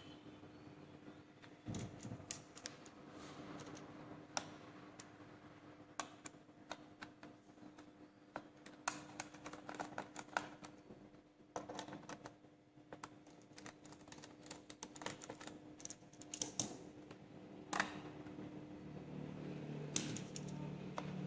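Irregular small plastic clicks and taps from hands working on an HP Compaq 6520s laptop's case and parts, some in quick little runs, over a faint steady hum.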